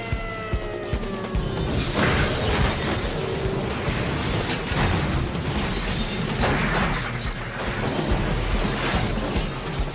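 Action-film soundtrack: dramatic score mixed with heavy crashes and impacts of a highway truck chase, a few falling tones near the start and several loud hits through the rest.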